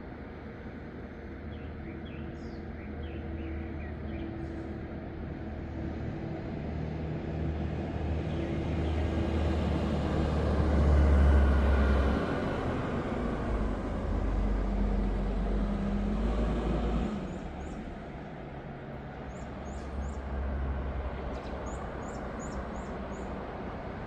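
A motor vehicle passing: its rumble builds for about ten seconds, drops in pitch as it passes and falls away about seventeen seconds in. Small birds chirp near the start and near the end.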